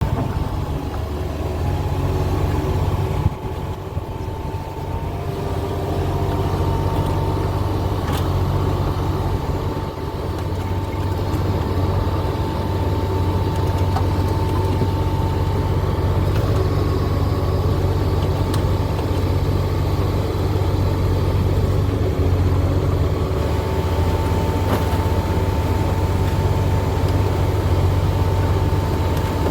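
A vehicle engine running steadily, like idling, with a constant low hum and a faint steady whine above it.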